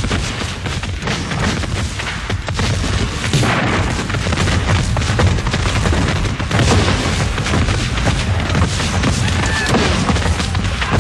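Rapid, overlapping black-powder musket fire from a line of Civil War re-enactors, with booms among the shots.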